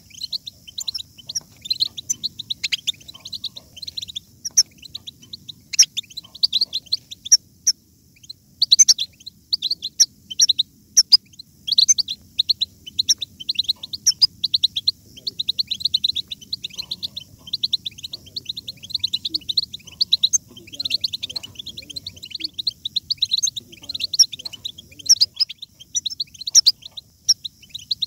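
A flock of European goldfinches twittering, a continuous run of rapid high chirps and trills with a brief lull about eight seconds in.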